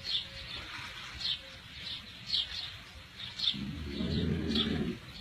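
A bird chirping: a short, high, downward-sliding chirp repeated about once a second.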